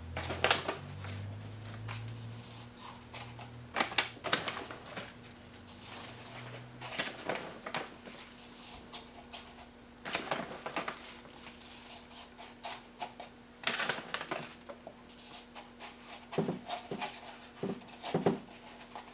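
Dry lavender buds poured from a bag through a funnel into a steel pipe, making irregular rustling and crinkling bursts over a faint steady hum.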